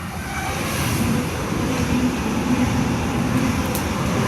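A Sydney Trains Oscar (H-set) electric multiple unit running through the station. Its noise builds over the first second, then holds steady with a low, pulsing hum.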